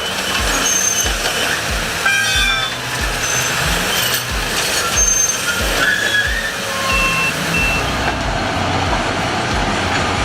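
Heavy machinery working: a steady mechanical noise with a regular low thump about twice a second and scattered short high tones.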